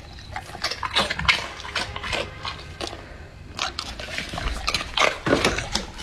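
Golden retriever chewing a crispy puffed rice cracker: a run of irregular crunches and crackles, loudest about a second in and again near the end.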